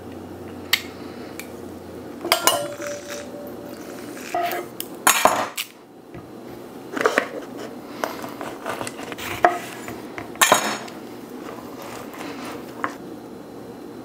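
Kitchen prep handling while juicing citrus: a plastic hand citrus press and squeezed fruit knocking against a small stainless steel bowl on a wooden cutting board, giving scattered clicks and knocks, one about two seconds in leaving a short ring.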